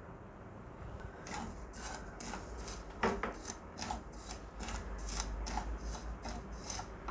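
A spoon scraping through dry granulated sugar as it goes into a pan for caramelising: gritty rasping strokes, about three a second, starting about a second in.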